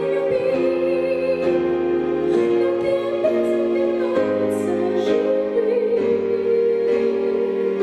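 Slow ballad accompaniment of sustained chords that change about once a second.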